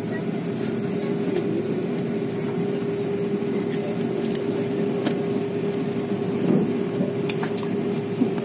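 Steady cabin noise inside an Airbus A330-300 around landing: a low rumble from the engines and airframe with a constant hum, and a few light clicks.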